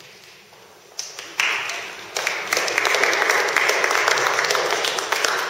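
Audience applause: a sharp clap or two about a second in, then clapping from many people that builds into a steady round.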